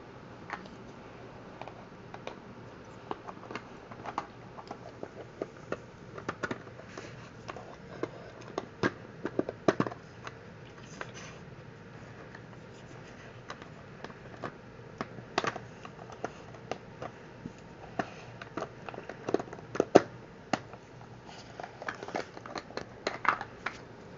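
Plastic pieces of a dog's treat-puzzle toy clicking, clacking and scraping as a dog noses and paws at its lids and sliders to get at hidden treats. The clicks are irregular and come in bunches every few seconds.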